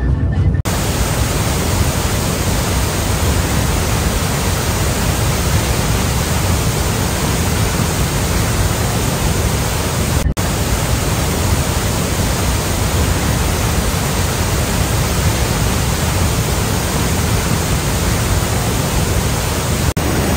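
Steady roar of falling water from the Iguazú waterfalls: a loud, even hiss across all pitches that runs on with only brief breaks about ten seconds in and near the end.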